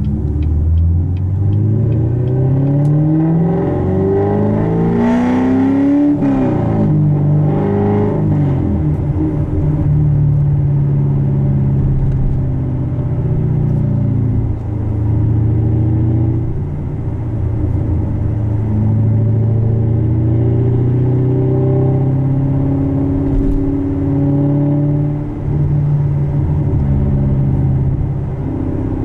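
Loud 6.2-litre LT1 V8 of a 2015 Corvette C7 Stingray, cammed and fitted with headers and a muffler-less exhaust, heard from inside the cabin. It accelerates hard with a rising note for about six seconds, shifts up around six and again around eight seconds in, then holds fairly steady revs.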